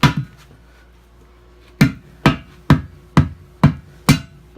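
Heavy hammer blows driving a tire's bead down over the rim edge to mount the tire by hand: two strikes, a pause of about a second and a half, then steady blows about two a second.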